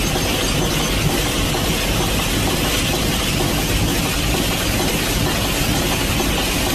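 Loaded open-top coal wagons of a freight train rolling past: a steady rumbling, rushing noise of wheels on rails that does not let up.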